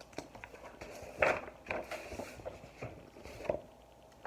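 Paper rustling and soft knocks as a large hardcover picture book's page is turned, loudest about a second in, with a few smaller rustles after.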